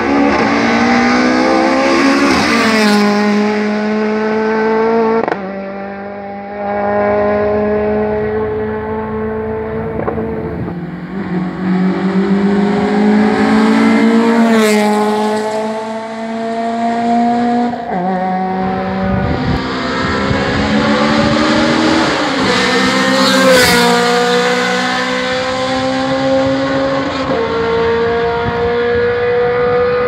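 Race car engine at full throttle on a hillclimb, its pitch rising through each gear and dropping sharply at each upshift, about seven times over.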